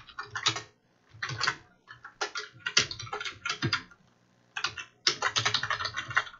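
Typing on a computer keyboard: quick runs of keystrokes in bursts, with short pauses about a second in and again around four seconds in.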